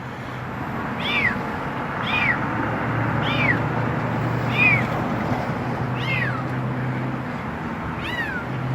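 A kitten meowing over and over: six short, high-pitched cries, each rising then falling, spaced about a second or so apart, over a steady low hum. These are the distress cries of a kitten trapped inside a fence.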